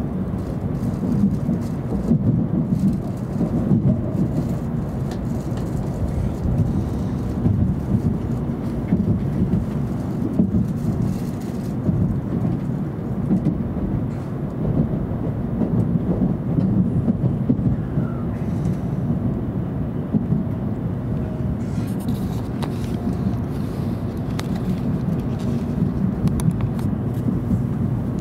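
Steady low rumble of a JR Central N700 Series Shinkansen heard inside the passenger cabin as the train runs into a station, slowing to stop, with a faint falling whine in the second half.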